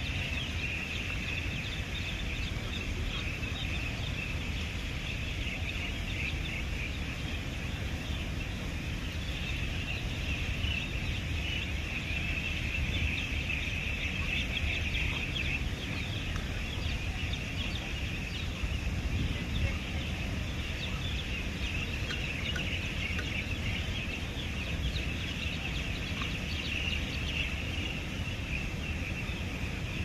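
Dense, continuous twittering of many birds at once, over a steady low rumble.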